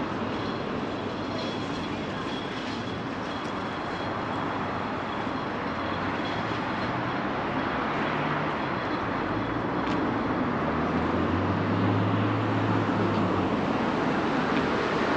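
Diesel engines of heavy construction machinery running, a steady mechanical drone with a deeper engine tone that swells about two-thirds of the way in.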